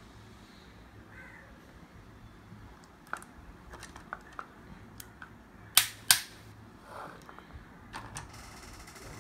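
Plastic toy excavator and dump truck handled on a wooden table: scattered light clicks and knocks of hard plastic, with two sharp clacks in quick succession near the middle.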